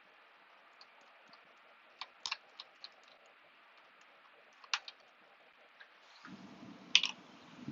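Scattered small clicks and taps from screws and a precision screwdriver being handled on the aluminium casing of a PowerBook G4 during disassembly, a few at a time with pauses between. A low steady noise comes in about six seconds in, with a sharper click soon after.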